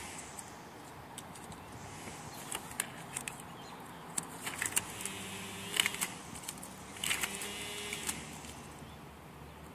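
Blue painter's tape being pulled off the roll, torn and pressed onto a car's bumper grille: short crackles and rips that come in several clusters, some with a brief squeak, over a faint steady hum.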